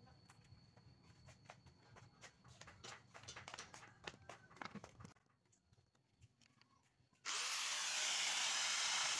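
Faint clicking and rattling of an angle grinder being handled, a short silence, then the angle grinder switched on about seven seconds in: a rising whine as it spins up, then a loud steady whine at full speed.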